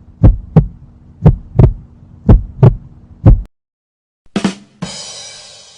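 Heartbeat sound effect: double thumps, lub-dub, about once a second over a steady low hum, stopping about three and a half seconds in. After a short gap, a brief hit and then a hissing burst that fades away.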